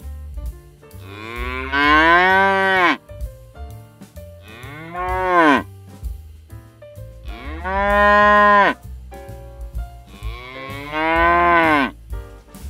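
Cattle mooing: four long moos, each rising and then falling in pitch.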